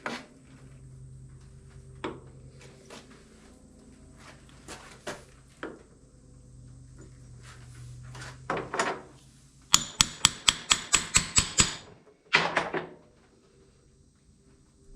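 Metal mower-deck caster parts being handled on a workbench: scattered clinks and knocks with a few short scrapes, and near the end a quick run of about ten sharp clicks, some five a second. A low steady hum sits underneath.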